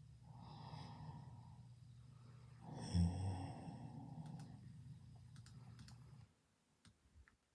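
A person snoring: a breath drawn in about half a second in, then a short, low, rough snore about three seconds in that trails into a long breath out ending about six seconds in.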